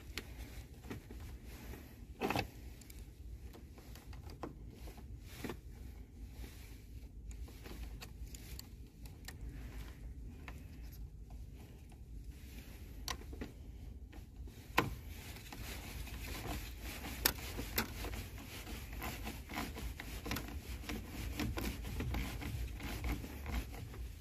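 Faint metallic clicks and scrapes of a wrench tightening a car battery's negative terminal clamp back onto its post. The clicks are scattered at first and more frequent in the second half, over a steady low rumble.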